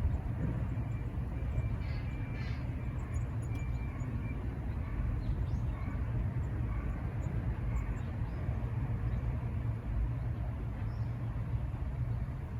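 Wild birds calling in short, scattered chirps over a steady low outdoor rumble.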